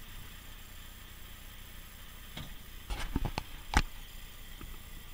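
Handling noise on the camera or its mount inside a vehicle cab: a scatter of sharp clicks and knocks a little past halfway, the loudest a single knock shortly after, over a faint steady hiss.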